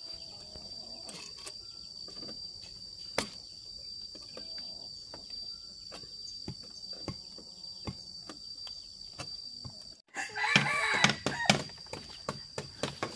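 A rooster crows once, loudly, about ten seconds in, over a steady high insect drone and scattered short knocks.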